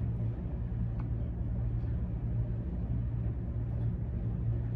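Steady low background hum, with one faint tick about a second in.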